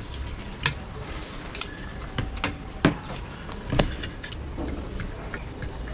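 Forks and a spoon clinking and scraping on ceramic plates while two people eat chowmein fast, with noodle slurping between the clinks. The clinks come irregularly, with the loudest a little before three seconds in and again near four seconds.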